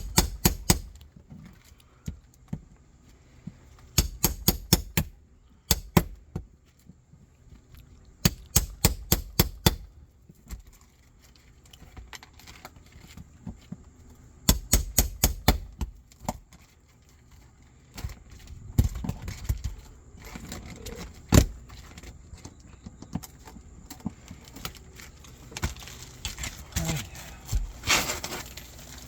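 Hand hammer blows on metal in quick bursts of several rapid strikes, with short pauses between bursts and one harder single blow about two-thirds through, typical of driving a nail puller under roofing nails to work them out of asphalt shingles.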